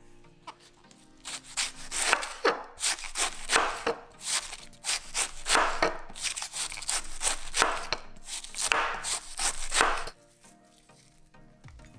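Chef's knife shredding a wedge of raw white cabbage on a bamboo cutting board: a steady run of crisp slicing strokes, about two a second, each cutting through the packed leaves into the wood. The strokes begin about a second in and stop about ten seconds in.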